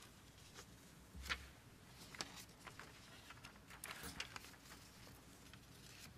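Near silence: room tone with a few faint, brief clicks, the loudest about a second in.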